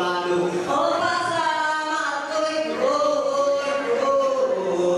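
A solo voice singing unaccompanied in a chant-like style, holding long notes that slide up and down in pitch.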